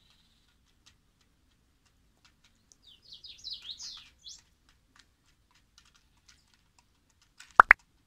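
Pigeons pecking grain from a plastic bottle feeder's tray: faint scattered tapping clicks. About three seconds in comes a quick run of high sparrow chirps. Near the end, two sharp pops are the loudest sound.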